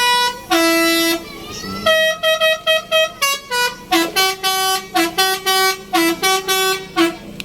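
A bus's basuri musical horn playing a tune: a loud run of short, clipped notes and a few held ones, jumping between several pitches, with a brief pause about a second in.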